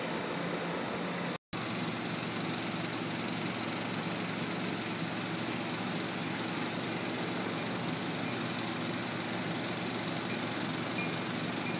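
An engine idling steadily with a low, even hum. The sound drops out completely for a moment about a second and a half in.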